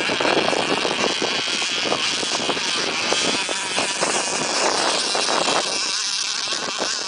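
Radio-controlled twin-hull race boat running at high speed, its motor giving a steady high-pitched whine.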